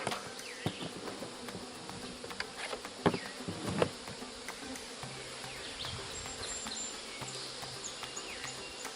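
Swarm of honeybees buzzing steadily around an open hive. A few sharp knocks about three and four seconds in.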